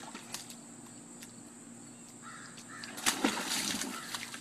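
Water splashing in a small plastic kiddie pool as a toddler drops into it, one loud splash about three seconds in.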